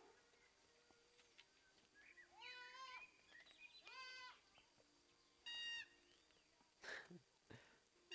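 Goat kids bleating faintly: three short, high calls about a second and a half apart.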